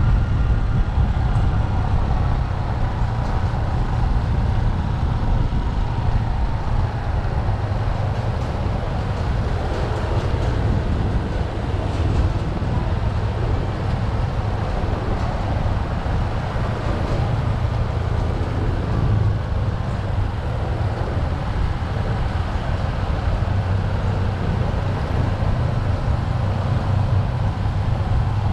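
Motorcycle engine running steadily at riding speed, heard on board the rider's own bike, with a heavy low rumble and road noise.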